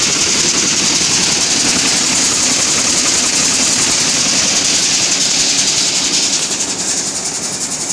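Nut chopping machine running steadily: the motor and its shaking sieve tray make a continuous metallic rattle and hiss as chopped nut pieces shower onto the steel screen. It eases off slightly near the end.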